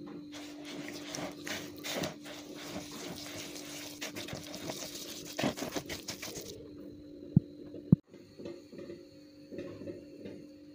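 A hand rubbing and squeezing coarse semolina soaked with melted fat in a bowl: a wet, grainy rustle that stops abruptly about six and a half seconds in. Two sharp clicks follow.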